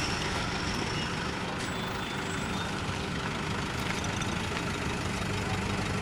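Car engine idling steadily, a low even hum.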